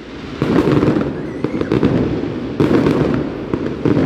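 Aerial fireworks bursting: three loud booms, about half a second in, about two and a half seconds in and right at the end, each fading into a rumble with a scatter of crackles.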